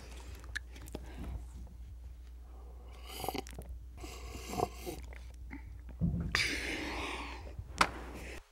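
Soft rustling and handling noises, with a few small knocks and clicks and a sharp click near the end, over a low steady hum. A hand from under a blanket is taking a paper cup away and setting it back beside a Bop It toy on the carpet.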